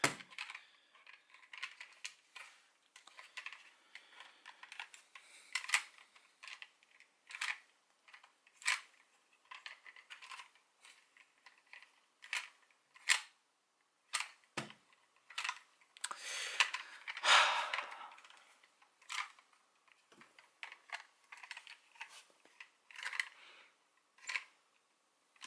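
Irregular light clicks and rattles of a hard plastic toy being handled and flicked in the hand, with a longer rustle of handling about two-thirds of the way through.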